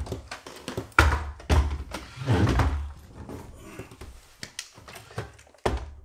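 Knocks and thunks of a Roomba robot vacuum being handled and set down on a wooden floor, with a sharp knock about a second in and another near the end.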